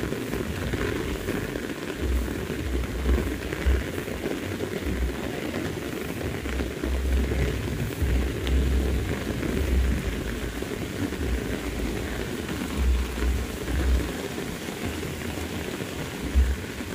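Heavy rain falling steadily on grass and vegetation, a continuous even hiss, with irregular low rumbles coming and going throughout.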